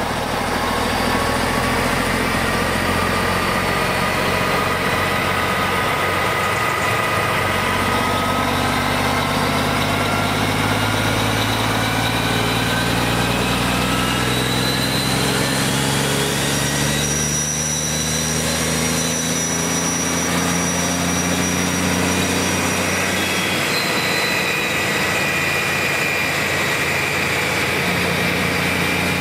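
Stump grinder's Cummins QSK19 diesel engine running under a steady drone while its heavy mulching drum spins up from idle speed to full revolution. A whine rises slowly in pitch as the drum gathers speed, and the low drone changes about two-thirds of the way through.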